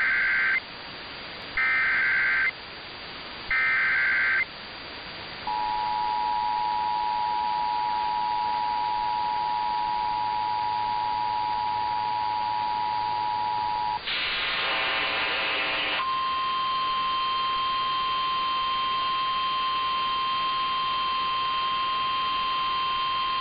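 Emergency Alert System tones heard over AM radio. First come three short screeching bursts of the digital SAME header, about two seconds apart. Then the two-tone 853/960 Hz attention signal holds steady for about eight seconds, a brief harsh buzz follows, and a steady single-pitch tone near 1050 Hz sounds to the end, the NOAA Weather Radio warning alarm tone.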